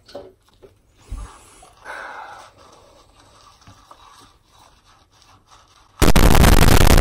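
Soft scraping and small knocks of dishes being washed by hand: a sponge scrubbing a metal mesh strainer. About six seconds in, a loud rushing noise starts abruptly and drowns everything else.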